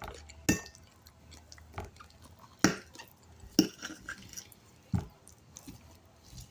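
Close-up eating sounds: wet chewing with irregular sharp mouth clicks and smacks every second or so.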